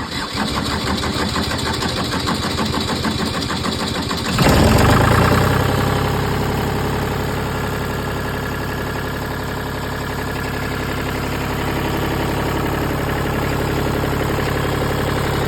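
Pull-behind Vermeer brush chipper's engine starting: it turns over and runs for about four seconds, then picks up with a louder surge and settles into a steady run.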